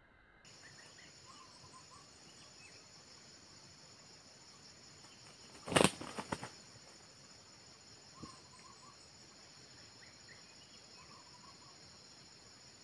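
Red junglefowl roosters clashing: a short flurry of loud wing beats about six seconds in, and one more faint thump a couple of seconds later, over a steady high drone of insects.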